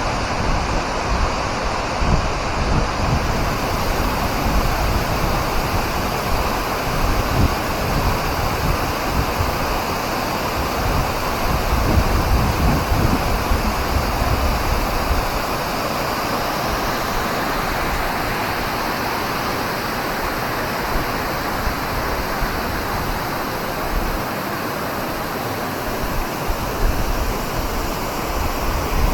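Steady rushing of a waterfall, with low wind rumble buffeting the microphone.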